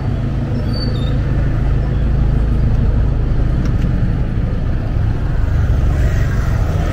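Street traffic: motor vehicles running close by, a loud, steady low rumble.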